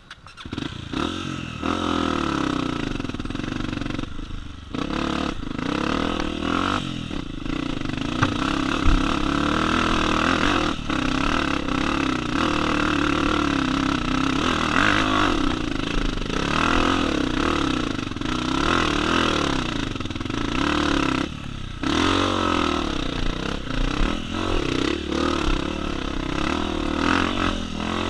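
Honda CRF250F dirt bike's single-cylinder four-stroke engine revving up and down while riding a trail, its pitch rising and falling again and again. It starts suddenly and briefly drops off the throttle about four and a half seconds in and again about twenty-one seconds in.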